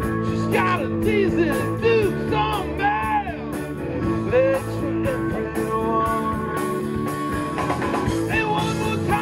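Rock band playing live: guitar, drums, bass and keyboard, with notes bending and sliding in pitch over a steady drum beat.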